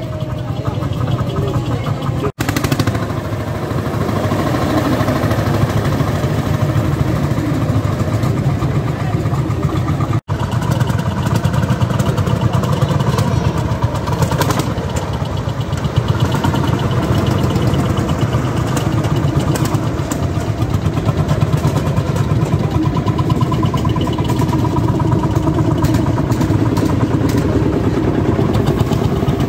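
Vintage farm tractor engines running at low speed as the tractors drive slowly past, a steady, rapid low firing beat. The sound breaks off for an instant twice.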